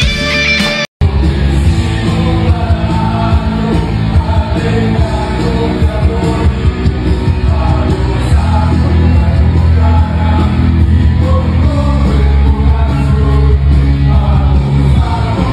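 Loud rock music with a singer and heavy bass. It cuts out for a moment about a second in and starts again as a different stretch of music.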